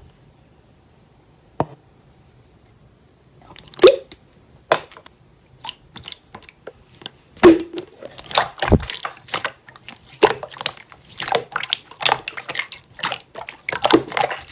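Slime being squeezed and poked, giving irregular sharp clicking and popping. The sounds are sparse at first and come thick and fast from about halfway through.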